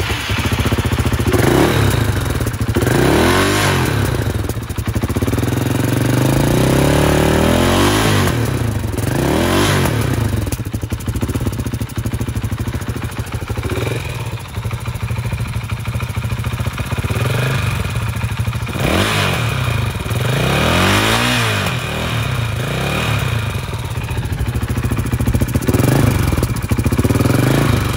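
2019 KTM 500 EXC-F's single-cylinder four-stroke engine through its stock exhaust, idling and revved in place with about a dozen throttle blips, each rising and dropping back to idle, one held a little longer a few seconds in.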